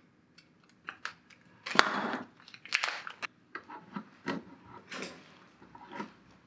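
Small handling noises: crinkles and scattered clicks as a metal control knob is taken out and pushed onto a control shaft of a preamp chassis. A sharp click about two seconds in is the loudest.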